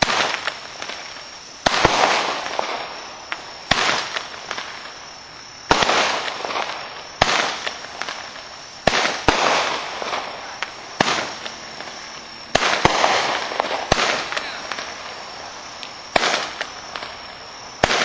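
A 16-shot consumer fireworks cake firing its flaming-ball shots one after another, about ten in all, roughly one every one and a half to two seconds. Each shot is a sharp launch bang followed by a fading hiss, and a crack of a report comes in between some of them.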